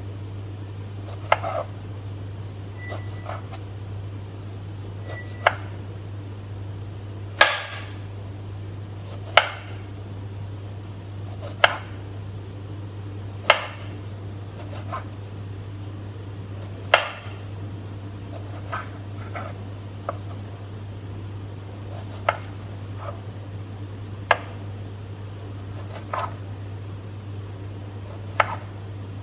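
Slow chopping with a knife on a cutting board: single sharp chops about every two seconds, over a steady low hum.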